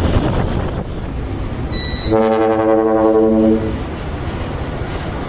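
Dump truck's trumpet horn sounding one loud blast of about a second and a half, about two seconds in, preceded by a brief high-pitched tone, over rumbling truck engine and road noise.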